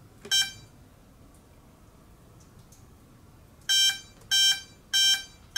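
Electronic speed controller of an RC motor glider beeping through its brushless motor during throttle calibration, with the battery plugged in at full throttle. One short beep comes a moment in, then after a pause a run of short, evenly spaced beeps, about one and a half a second.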